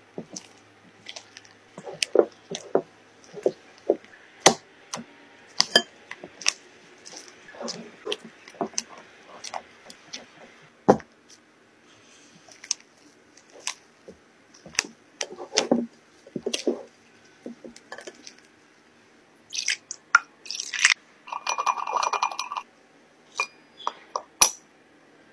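Silicone spatula stirring and folding a thick cream-cheese batter in a glass bowl: soft squelching strokes with many sharp clicks and clinks where the spatula knocks and scrapes the glass. A busier clatter about three-quarters of the way through. Near the end, a fork clinks in a small glass bowl of coffee.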